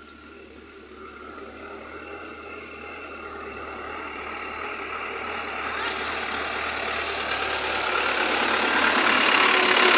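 Case JX 70T diesel tractor towing a loaded trailer drawing closer, its engine running steadily and growing steadily louder as it approaches.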